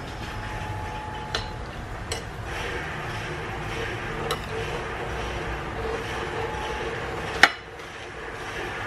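Kitchen knife tapping a ceramic plate while cutting raw squid: a few light clicks, then a sharp clack about seven seconds in as the knife is set down on the plate, over steady background noise.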